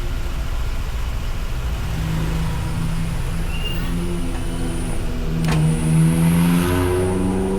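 A motor vehicle's engine speeding up over a steady low rumble. Its pitch climbs in steps from about two seconds in and is loudest near the end, with one sharp click partway through.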